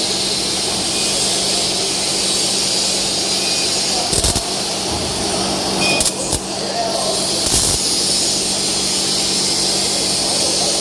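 MIG welding arc running steadily with a continuous crackling hiss as a bead is laid, with a few sharp pops around the middle.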